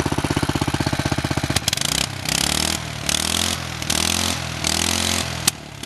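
Small Mitsubishi go-kart engine running at an even putter, then revved four times by hand at the throttle linkage, each rev rising and falling. A sharp pop near the end is a backfire, after which the engine drops back.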